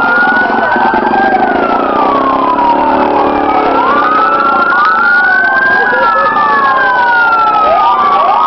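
Several fire-truck sirens wailing at once, their rising and falling pitches overlapping out of step. A low engine buzz runs underneath for the first three seconds or so.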